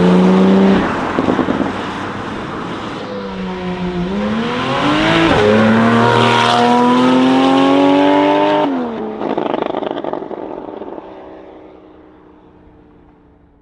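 Porsche 991 Turbo S with an Akrapovic exhaust accelerating hard. A loud burst of revs cuts off about a second in, followed by exhaust crackles; the revs then climb again through a gear change, fall off about nine seconds in with more crackles, and the car fades away into the distance.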